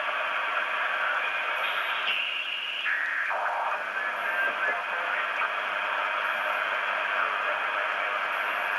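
Shortwave receiver hiss and static from an ICOM IC-PCR1000 in lower sideband with a narrow 2.8 kHz filter on the 40-metre amateur band. The noise changes abruptly twice, about two and three seconds in, as the receiver is tuned down in 1 kHz steps between stations. A faint thin whistle sits in the noise for a moment about four seconds in.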